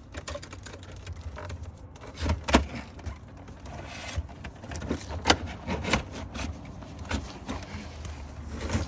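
Handling of a heavy RV power cord and plug adapter: rubbing and scraping with several sharp clunks and clicks as the plugs are fitted, over a steady low hum.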